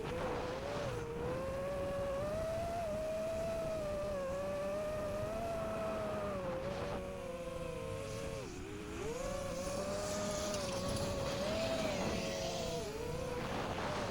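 5-inch FPV quadcopter's motors and propellers whining, the pitch wavering up and down with the throttle and dipping sharply twice, over a rush of wind noise.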